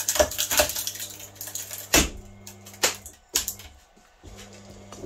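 A homemade screw-actuator winding puller hums as it strains against copper stator windings, with repeated clicks and cracks. A loud sharp crack comes about two seconds in as the anchoring bolt snaps. The hum drops out for about a second near the end.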